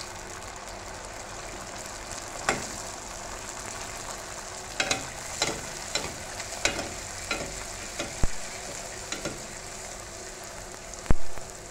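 A puri deep-frying in hot ghee in a metal kadai: a steady sizzle, with a slotted metal spoon knocking against the pan about nine times from about two seconds in, the loudest knock near the end.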